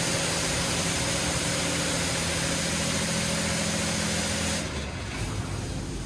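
Washworld Razor touchless in-bay car wash running: a steady hiss of high-pressure water spray over the hum of its pump motors. The spray cuts off abruptly about four and a half seconds in, leaving a quieter low hum.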